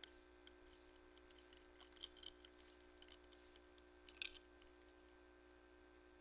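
A scatter of light clicks and clinks over about four seconds, sharpest at the start and about four seconds in, then stopping, over a faint steady hum.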